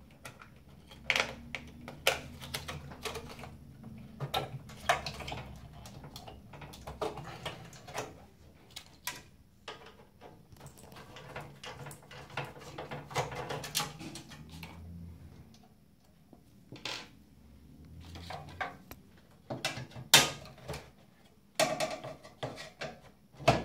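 Scattered clicks, clinks and knocks of hands and screwdrivers working on the sheet-metal chassis of an Allen-Bradley PanelView 1200 terminal: ribbon-cable connectors pulled from the circuit board, then screws being backed out of the metal CRT cage. A few sharper knocks come near the end.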